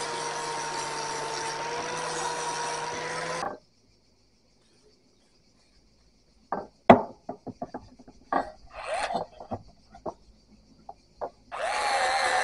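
An electric power tool running steadily with a whine, working on the old cleaver. It stops abruptly and, after a silent gap, there is a scattered series of sharp knocks, clinks and short scrapes from tools and metal being handled. Near the end the power tool runs again.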